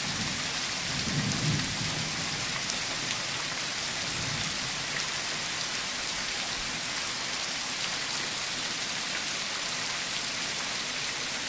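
Steady rain pouring down in a thunderstorm. A low rumble of thunder swells about a second in and fades away by about four seconds.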